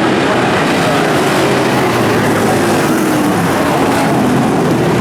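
A field of street stock race cars running on a dirt oval: a steady, loud drone of several engines together.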